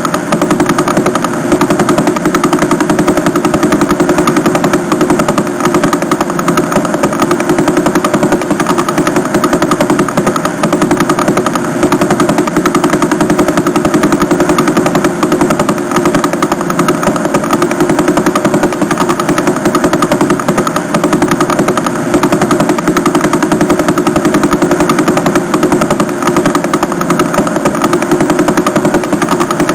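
Vela pulsar's radio pulses converted to audio: a loud, steady, rapid train of pulses, one per turn of the neutron star, which spins over 11 times a second.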